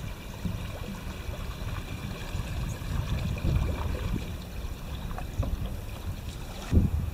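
Low, fluttering outdoor rumble, typical of wind buffeting the microphone, with a louder bump about a second before the end.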